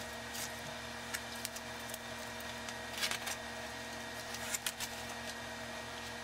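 Paper-backed vinyl stencil sheet with application tape rustling and crackling as it is handled and lifted off the CNC bed, with short sharp crackles about three seconds in and again a second and a half later. Under it, a steady low hum.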